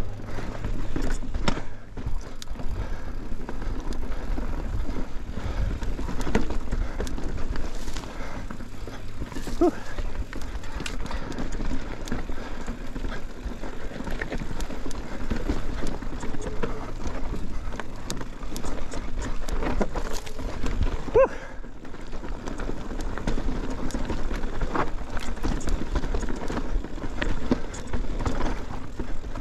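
Mountain bike clattering over a loose, rocky trail: tyres crunching on rock and gravel, with a dense run of knocks and rattles from the bike and a low rumble. A couple of brief squeaks come through, one near the middle and one about two-thirds of the way in.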